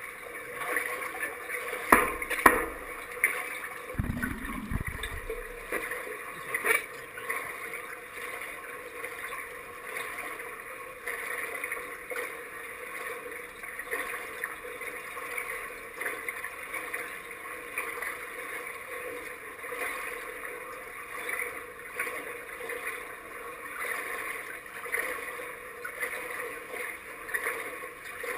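Water lapping in an indoor pool under a steady hum from the pool hall. A few sharp knocks come about two and seven seconds in, with a low thump about four seconds in.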